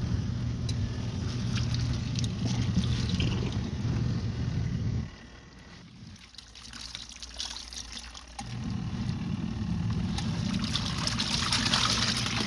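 Small Costway portable washing machine agitating a load of clothes, its motor humming and the water sloshing; it stops for about three seconds around the middle, then starts again.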